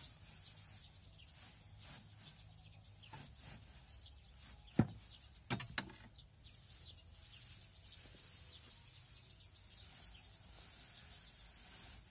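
Loose hay rustling as it is pushed by hand into a homemade particle-board hay press, with three sharp knocks about five seconds in. Faint bird chirps in the background.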